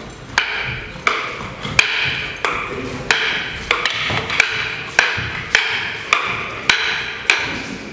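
Training sticks clacking together in a steady two-person double-stick drill: about a dozen sharp wooden strikes at an even pace, a little faster than one a second, each with a brief ring.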